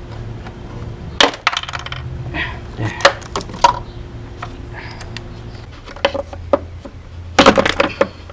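Sharp metallic clicks and clinks of hand tools and parts being worked loose in an engine bay, a few scattered taps and then a quick cluster near the end.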